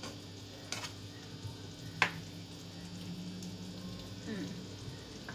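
Faint sizzling of food frying in a pan over a steady low hum, with two sharp utensil clicks against the pan, the second and louder one about two seconds in.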